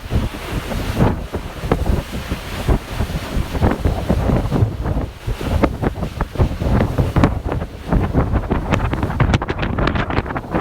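Heavy wind buffeting the microphone in irregular gusts, over the rushing water and running of a passenger ferry under way.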